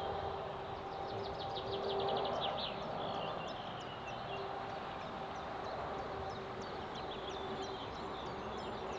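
Small songbirds chirping, with one quick trill about two seconds in, over steady wind noise on the microphone and a faint, even hum in the background.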